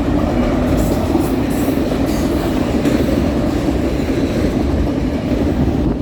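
A fast BNSF intermodal freight train's cars rolling past with a steady, loud rumble of wheels on rail, and a few sharp clacks in the first half.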